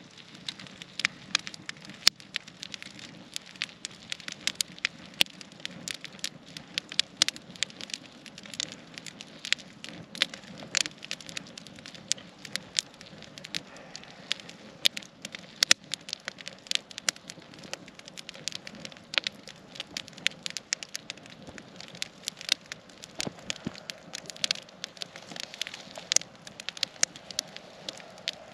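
Wood campfire crackling, with irregular sharp pops, often several a second.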